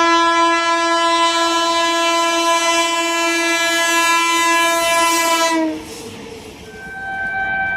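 Indian locomotive horn sounding one long, loud blast of a single steady note for nearly six seconds, dipping slightly in pitch as it cuts off. After a short lull, another steady horn tone starts near the end.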